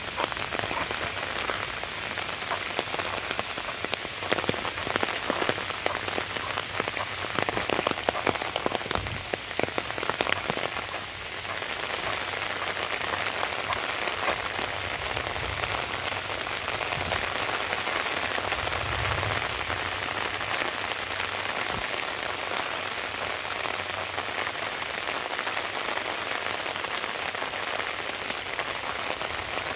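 Steady rain falling on leaves and wet ground, a dense hiss with countless fine drop ticks, heavier patter in the first third.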